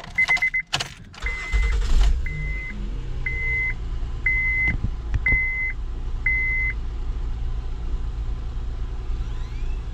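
2012 Honda Pilot's 3.5-litre V6 cranking briefly and catching about a second and a half in, then idling steadily on its freshly installed battery. A dashboard warning chime beeps about once a second over the first seven seconds.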